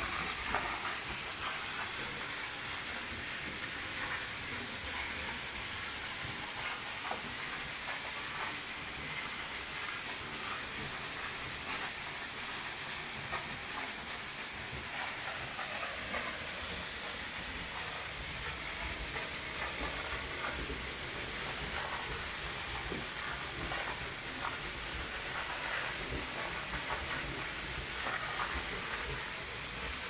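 Steady hiss of rushing water from a waterfall, even throughout, with a few faint ticks over it.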